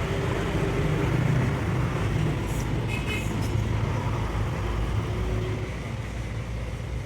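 A steady low engine rumble with a few faint clicks about halfway through.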